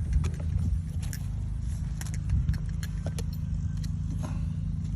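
Scattered light clinks and knocks, irregular, over a steady low rumble.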